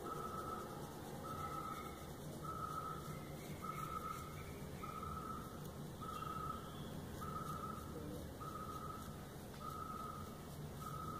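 A high steady beep repeating about once every 1.2 seconds, each beep about half a second long, over a low hum. Under it is the faint scrub of a toothbrush on fingernails.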